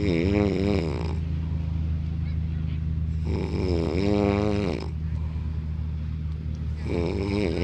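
A man snoring in his sleep: three long, loud snores about three and a half seconds apart, each with a wavering pitch, over a steady low rumble.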